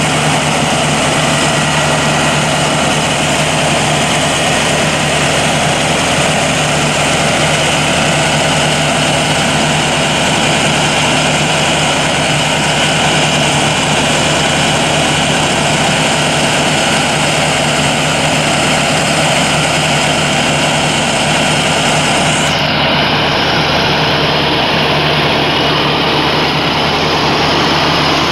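Ambulance engine idling with a steady, even drone. The high hiss riding on it cuts out suddenly near the end.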